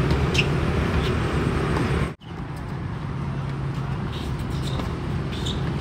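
Steady outdoor background rumble with a low hum, in the manner of distant traffic, broken by a sudden dropout for an instant about two seconds in.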